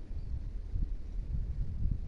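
Low, gusting rumble of wind on the microphone, with a distant KAI diesel locomotive approaching.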